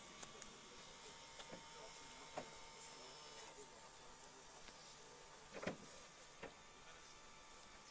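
Near silence with a faint steady hiss and a handful of soft clicks or knocks, the loudest about five and a half seconds in.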